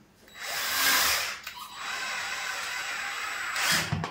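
Cordless drill-driver driving a screw into the window frame, running in two spells: a short one at first, then after a brief pause a longer steady run that rises briefly near the end and stops.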